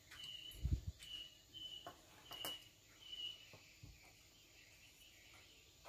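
Short high chirps repeating about twice a second from a small animal, with a low thump about a second in and a few light knocks as tools are set down on a wooden table.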